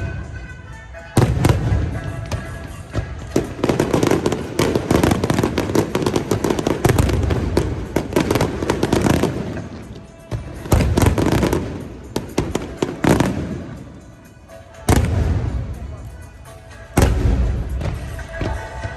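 Aerial fireworks shells bursting in quick succession: sharp bangs and dense crackling throughout, with heavy booms about a second in and again around eleven, fifteen and seventeen seconds.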